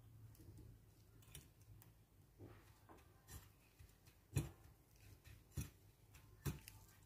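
Metal fork clicking against a ceramic plate while tempeh strips are turned in dry breadcrumbs: several short sharp clicks about a second apart, the loudest a little past the middle.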